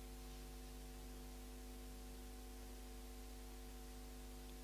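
Faint, steady electrical hum with hiss from the microphone and sound system: a low buzz with several steady tones above it, unchanging throughout.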